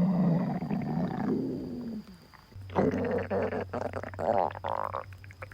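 Human stomach growling: a long gurgling rumble that dies away about two seconds in, then after a short lull a second rumble that rises into a higher-pitched, warbling whine before fading.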